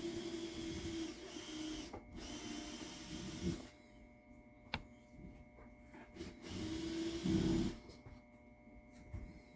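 A small power tool cutting or sanding a wooden block in three short passes, a hissing grind over a steady low hum, with a sharp click between the second and third passes.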